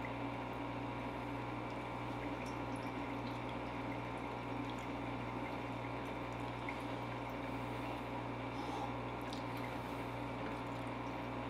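Steady watery trickle with a low electrical hum from a running pot still with a copper column, distilling blueberry wine into brandy, with a few faint ticks.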